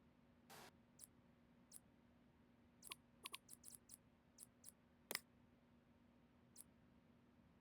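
Faint, irregular sharp clicks of PC components being handled, about a dozen, with the loudest about five seconds in, over a faint steady hum.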